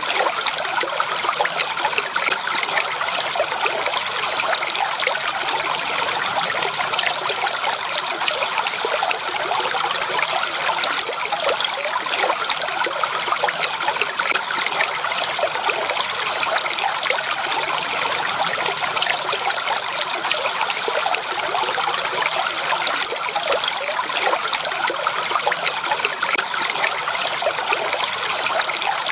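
Natural stream water trickling and splashing, steady and unbroken.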